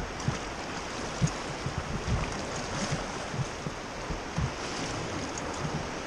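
Turbulent river current churning and swirling around an oar raft, a steady rushing wash of water with scattered low thumps.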